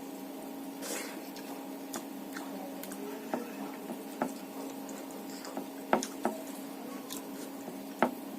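Wet, squishy eating sounds from a person eating rice with fish curry: irregular chewing and mouth smacks with a few sharp clicks, the loudest about six and eight seconds in, over a steady low hum.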